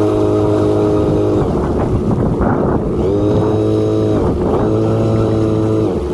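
Boat motor running at a steady pitch. Its hum breaks up about a second and a half in and again around four seconds, each time rising back to the same pitch.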